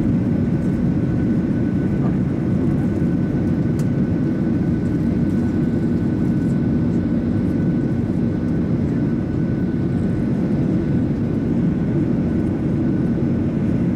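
Steady cabin drone of a Boeing 737-800 in flight: the CFM56-7 turbofan engines and the airflow past the fuselage heard from inside the passenger cabin, with a faint steady whine over the low rumble.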